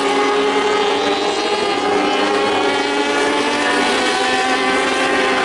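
A pack of racing motorcycles at high revs, several engine notes overlapping, steady with small shifts in pitch as the bikes run through a corner.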